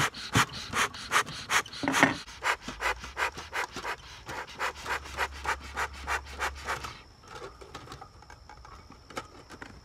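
Bee smoker's bellows pumped in quick strokes, about three puffs of air a second, forcing air through smouldering pine needles to build up smoke. The pumping stops about seven seconds in.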